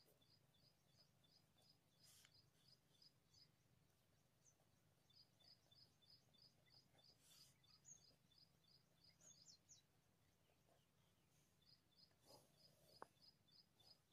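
Near silence: faint room tone with a low hum, and faint quick high chirps repeating about three times a second in runs of a few seconds.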